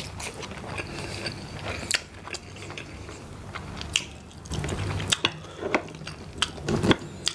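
Close-miked chewing, and the crackle and snap of cooked mud crab shell being broken apart by hand: a run of many sharp clicks and cracks.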